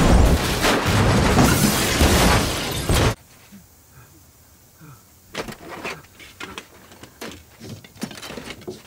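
A taxi cab crashing and rolling over: a loud, continuous crunching and grinding of metal and glass that cuts off abruptly about three seconds in. Then comes a hush with sparse small clicks and crackles of broken glass and debris settling.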